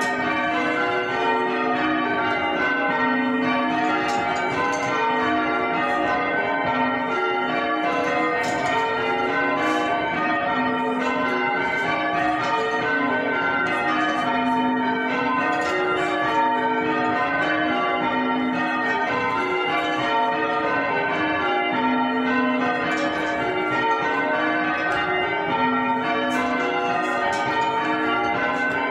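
A ring of six church bells rung full circle in change ringing, the bells striking one after another in steady, unbroken rows, with the deepest bell, the tenor, sounding about every two to two and a half seconds.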